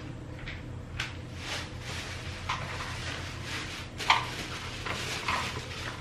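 Scattered light knocks and rustles from a plastic-wrapped washing machine being handled, over a steady low hum.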